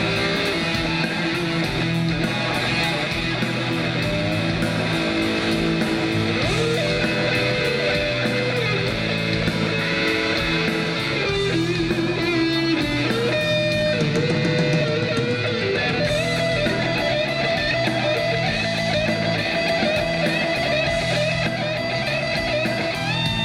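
Rock band playing an instrumental break with no singing. An electric guitar carries a sustained, bending melody line over the bass and the rest of the band.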